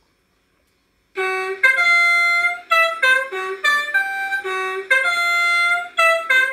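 A Beier RC sound module plays one of its signal tones through a large loudspeaker: a melody of quick-changing notes that starts about a second in.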